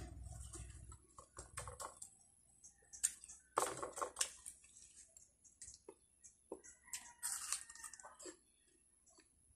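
Faint crisp bites and chewing of watery rose apple (tambis) fruit, with scattered small clicks from a hand picking pieces out of a bowl and a few short crunchy bursts.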